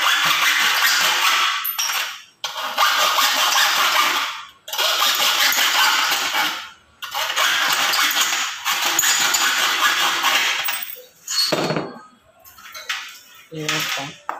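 Hacksaw cutting an aluminium sliding-door frame profile held in a vise, in quick strokes that run in spells of about two seconds with brief pauses between. The sawing stops about 11 seconds in, and a few short knocks and handling sounds follow.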